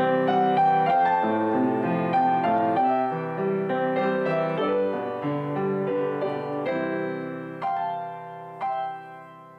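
Background piano music, a gentle melody of single notes over chords, fading out gradually with a few last notes struck near the end.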